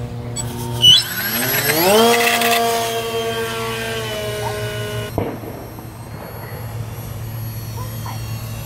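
Electric motor and propeller of a radio-controlled foam triplane. After a brief sharp sound about a second in, it whines up in pitch over about a second, holds steady for about three seconds, and then cuts off abruptly.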